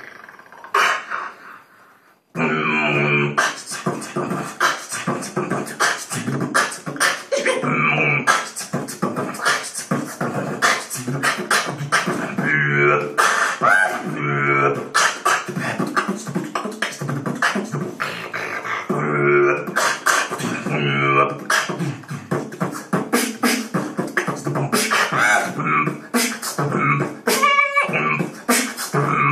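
Beatboxing through a prototype mask microphone: fast, dense vocal clicks and percussive hits with hummed pitched notes mixed in. It starts about two seconds in, after a brief pause.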